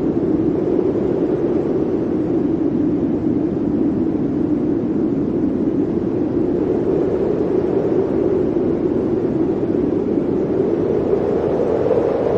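Blizzard wind blowing steadily as a loud, dense rush. Its pitch sinks a little midway and rises again near the end.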